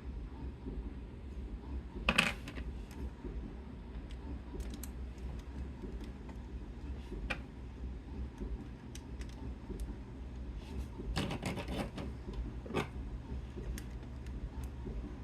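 Scattered sharp clicks and taps of small hard objects, the loudest about two seconds in and a quick cluster near the end, over a steady low hum.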